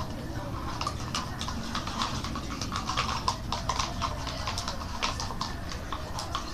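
A utensil stirring a sticky shampoo-and-toothpaste slime mixture in a bowl, making quick irregular clicks and scrapes.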